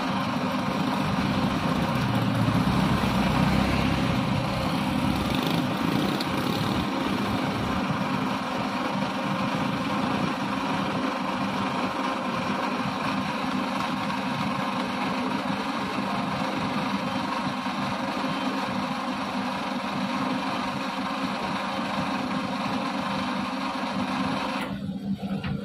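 Diesel engine of an orange Mitsubishi Fuso dump truck running steadily, a little heavier a couple of seconds in. It cuts off abruptly just before the end.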